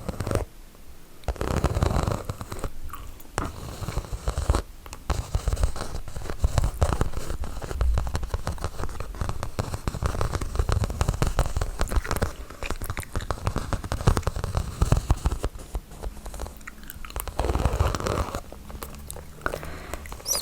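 Chewing gum, a dense run of mouth clicks and smacks, easing briefly about a second in and again near 17 seconds.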